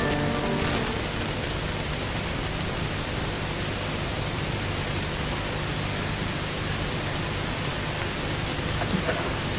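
Steady hiss with a low hum under it and no speech or music: the background noise of an old television recording. The last piano notes die away just after the start.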